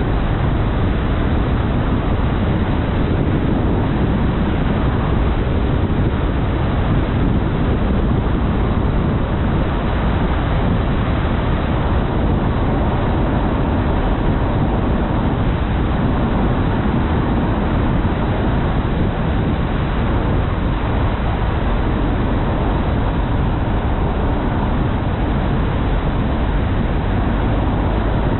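Steady road and wind noise from a car driving at speed: a continuous low rumble and hiss with no distinct engine note or separate events.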